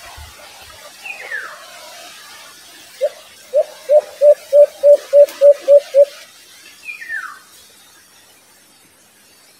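White-eared brown dove giving a series of about ten short, low coos that speed up slightly, about three seconds in. A higher falling whistled note comes once before and once after the coos.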